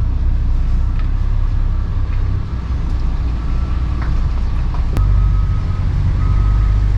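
Lorry's diesel engine running while it reverses, with its reversing alarm beeping on and off over the engine. The engine gets louder about five seconds in.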